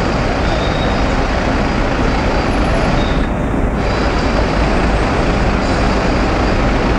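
Steady city street traffic noise from a jam of cars and taxis idling and inching along.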